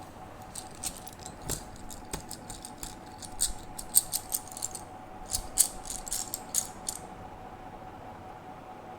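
Slate pencils clicking and tapping against one another as they are handled, in quick irregular clusters that stop near the end. A faint steady hum runs underneath.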